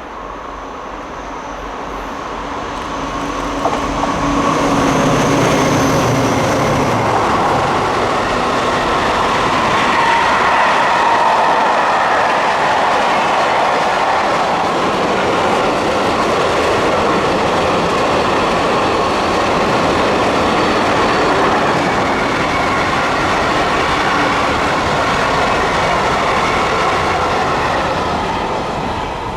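A long train passing close by on a main line. The noise builds over the first few seconds as it approaches, then holds as a loud, steady rush of wheels on rail for about 25 seconds, and begins to fade at the very end.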